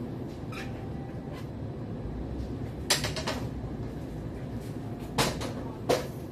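Kitchen cleaning knocks over a steady low rumble: a sharp knock followed by a short clatter about three seconds in, then two more sharp knocks near the end, like things being put down and cupboard doors shut.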